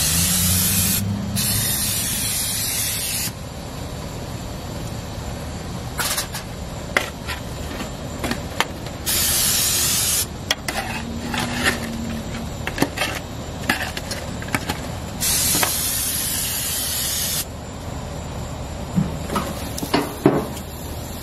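Cooking-oil spray can hissing in four bursts of one to two seconds each, two close together at the start, one around the middle and one near the end, with light clicks and taps in between.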